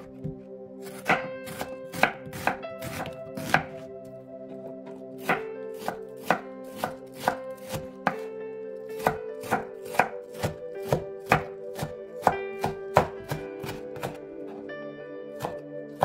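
Chef's knife chopping red onion on a wooden cutting board: a quick, uneven series of sharp knife strikes, about two a second, with a short pause about four seconds in. Steady background music runs underneath.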